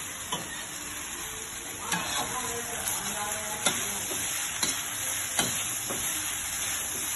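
Fried rice sizzling in a wok over a gas flame as it is stir-fried, with the metal spatula scraping and clinking against the wok every second or so.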